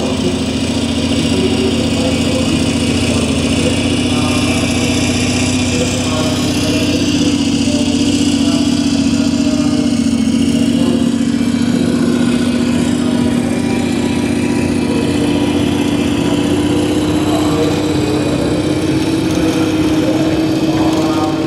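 Large-scale RC model of a PzH 2000 self-propelled howitzer driving, with a steady engine drone that rises slightly in pitch toward the end.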